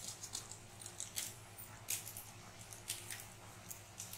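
Noodle broth bubbling in a pan, with scattered light pops and crackles and a steady low hum underneath.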